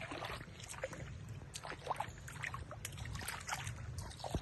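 Small irregular splashes and water lapping in a swimming pool as monkeys bathe and move about in it.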